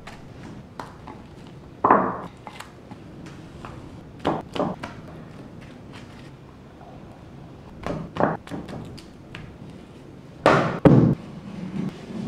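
Kitchen handling sounds: a glass bowl and a spatula knocking and scraping on a wooden board, a few scattered knocks and thuds, the loudest two close together near the end.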